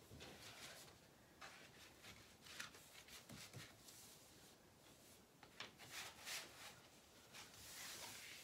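Near silence with faint, scattered rubbing and scraping sounds of a picture frame being handled and pressed against a painted wall.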